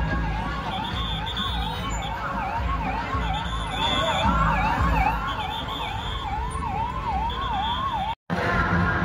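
Ambulance siren wailing in a fast up-and-down sweep, about two cycles a second, over steady low street and crowd rumble. It stops abruptly near the end.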